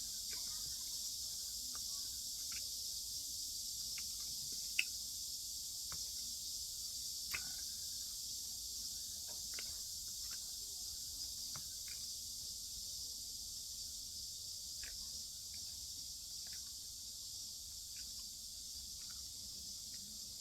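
Scattered light clicks and taps of utensils against dishes while eating, with two sharper knocks about five and seven seconds in, over a steady high-pitched hiss.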